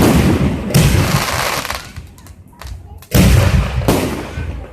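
Fireworks going off. A loud bang comes about a second in, and its crackle dies away over the next second. Two more bangs follow close together about three and four seconds in, each trailing off in crackle.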